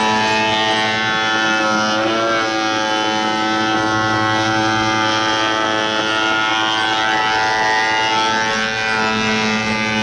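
Ryobi 10-inch benchtop thickness planer running loud and steady, its motor whine sagging in pitch briefly about two seconds in as it planes a 1-inch board.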